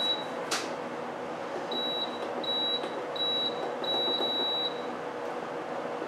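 Frigidaire FFAD2233W1 dehumidifier's control panel beeping with each button press: a short high beep at the start and a run of several more from about two seconds in, with one click about half a second in. Its fan runs underneath with a steady, low hum.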